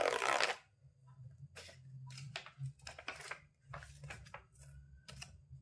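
Paper envelope being torn open, the loud tearing stopping about half a second in, then short, scattered rustles and crinkles of paper as the folded letter is drawn out and handled.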